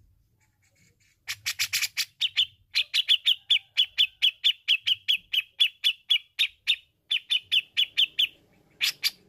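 Grey-cheeked bulbul (cucak jenggot) calling: starting about a second in, a rapid run of short, clipped, downslurred notes, about four a second, with a brief pause after about six seconds and two louder notes near the end.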